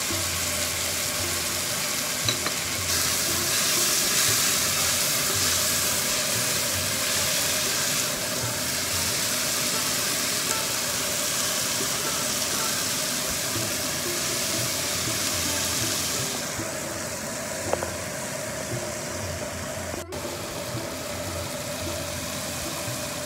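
Chopped tomatoes and onions sizzling as they fry in oil in a pan, over a faint steady hum. The hiss is strongest through the first two-thirds and eases off about sixteen seconds in.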